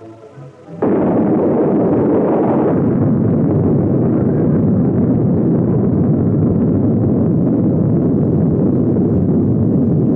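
Atomic bomb explosion on an old film soundtrack: a sudden loud roar about a second in, which then goes on steadily.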